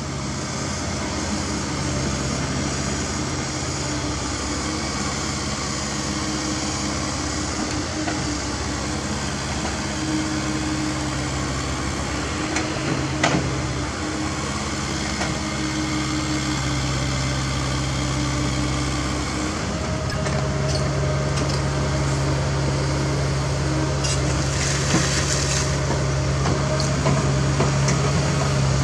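CAT 305.5E2 mini excavator's diesel engine running steadily under hydraulic work as it digs dirt. There is a sharp knock about halfway through and a few lighter clanks near the end. The engine note grows a little louder about two-thirds of the way through.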